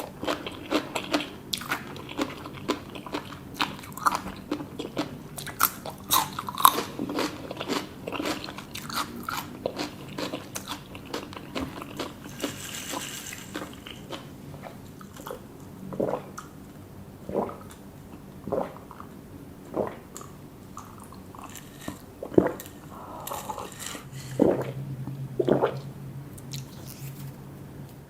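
Close-miked eating: crisp bites and chewing, many sharp crunches in quick succession that thin out to single bites about halfway through, with a low steady hum near the end.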